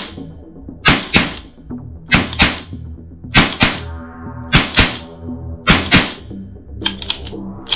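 Background music with a steady beat: pairs of sharp percussive hits recurring about every second over a low sustained bed, with a cluster of quicker clicks near the end.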